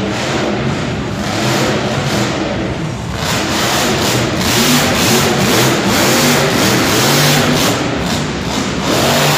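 Grave Digger "The Legend" monster truck's supercharged big-block V8 revving up and down under hard throttle, louder from about three seconds in.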